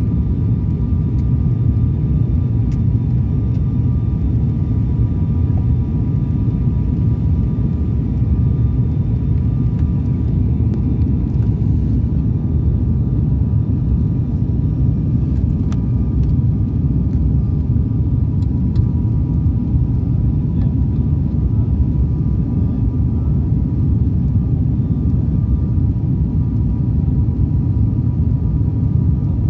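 Steady low roar of an airliner cabin in flight, engine and airflow noise heard at a window seat, with a faint steady whine over it.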